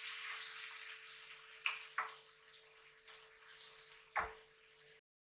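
Chicken pieces sizzling in a pan of hot spiced oil, the sizzle loudest at first and fading over a couple of seconds, with three sharp knocks. The sound cuts off abruptly near the end.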